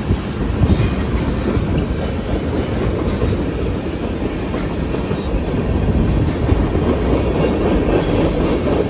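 Freight train cars rolling steadily past, with faint high-pitched wheel squeal now and then.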